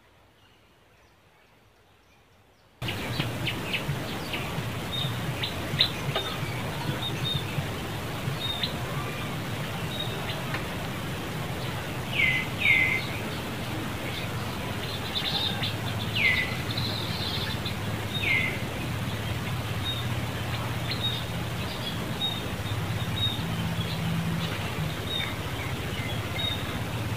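Outdoor ambience: steady background noise with a low hum, scattered faint high chirps and a few short high whistles that fall in pitch. The first few seconds are near silence.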